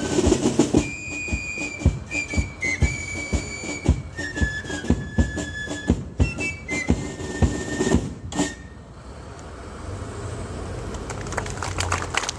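A military corps of drums playing a march: fifes carrying a high melody over side-drum beats, ending about two-thirds of the way in. Applause starts up near the end.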